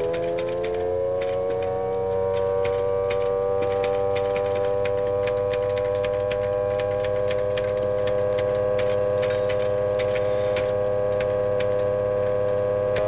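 A loud, steady whining tone from a noise-making machine, rising in pitch at first and then holding: the 80 decibels of 'unpleasant noises' of a noise-fatigue experiment. Typewriter keys clack irregularly throughout.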